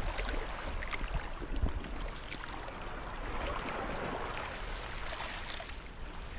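Shallow water sloshing and lapping around a hand holding a fish under the surface, with a steady watery rush and scattered small splashy ticks.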